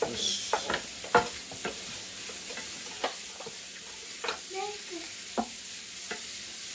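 Onions sizzling in a frying pan as they are stirred: a steady hiss with scattered clacks of the utensil against the pan.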